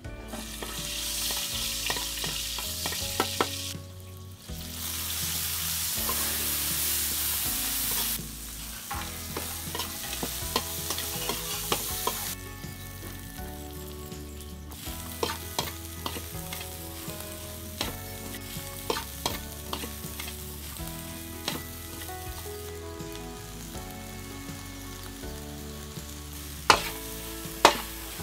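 Dried shallots sizzle loudly in hot oil in a wok, in two surges over the first eight seconds. After that, rice is stir-fried in the wok, with a quieter frying hiss and a metal spatula scraping and tapping against the pan. A few sharp knocks come near the end.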